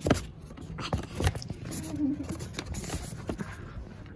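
Close handling noise of a sheet of paper and hands near the microphone: scattered taps, scrapes and rustles, the loudest about a second in.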